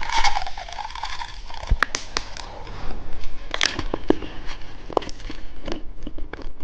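Plastic candy packaging crinkling as it is handled and opened, with scattered sharp clicks and ticks.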